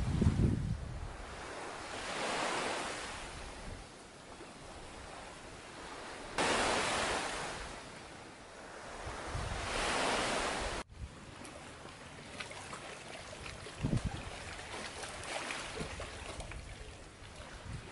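Sea surf washing ashore in slow swells, each rising and fading over a couple of seconds. Partway through, the sound cuts off abruptly to quieter surroundings with faint clicks and one low thump.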